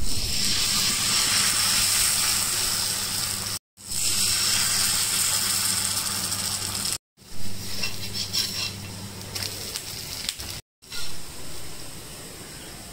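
Dosa batter sizzling on a hot dosa pan, a steady hiss heard in four short stretches that each cut off abruptly. A low steady hum lies under the first three stretches.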